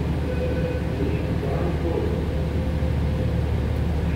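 Steady low rumble of a dually pickup's engine idling, heard from inside the cab as the truck rolls slowly into an automatic car wash bay, with a faint steady hum over it.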